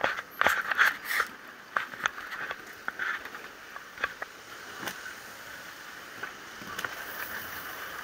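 Walking through a city street with a body-worn camera: irregular clicks and short bursts of handling noise close to the microphone over a steady street hiss. The clicks are thickest in the first second or two, then thin out.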